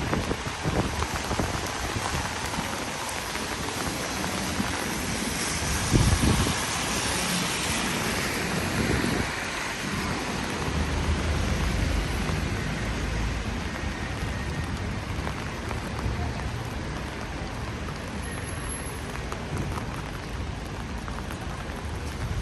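Steady rain falling on a city street, with a low rumble of traffic under it and a brief thump about six seconds in.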